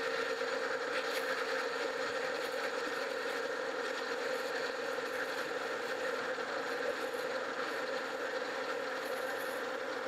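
Metal lathe running steadily while a parting tool is fed into a turning tube to cut off a thin spacer washer: a constant machine hum with cutting noise over it.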